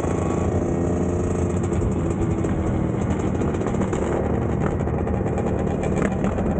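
Two-stroke dirt bike engines running at a fairly steady throttle while riding, heard from on board the bike.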